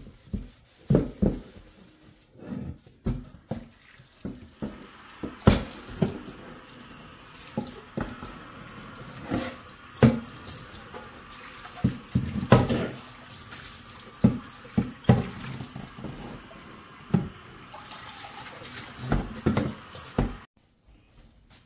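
Water running from a tap into a sink, with repeated knocks and clatter of things being handled. The running water starts about four seconds in and cuts off suddenly near the end.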